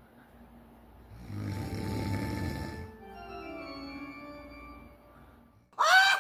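A person snoring: a low rumbling snore, then a long whistling tone that falls in steps, cartoon-style. Near the end a sudden loud cry of a voice cuts in.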